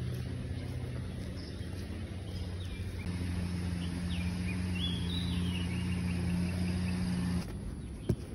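Outdoor ambience: a steady low hum with a few short bird chirps in the middle. The hum cuts off suddenly near the end.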